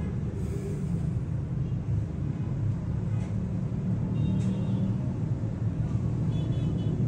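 Steady low rumble of background noise, with faint high tones coming and going around the middle and near the end.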